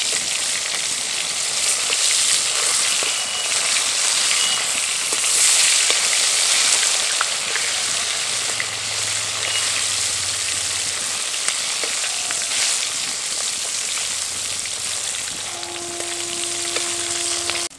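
Whole climbing perch (koi) frying in hot mustard oil in a metal kadai: a steady sizzle with small pops, and light scrapes of a spatula as the fish are turned.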